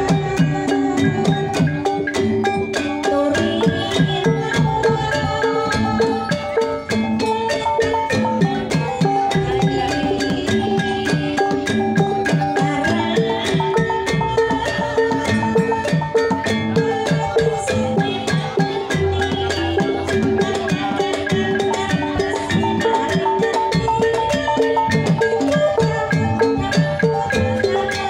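Javanese gamelan in Banyumasan tayub style: kendang hand drums drive a steady rhythm under ringing bronze metallophones struck with mallets.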